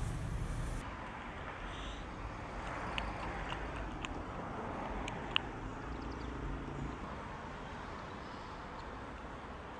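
Outdoor background noise: a steady hiss and low rumble, with a few faint sharp clicks, the loudest about five seconds in.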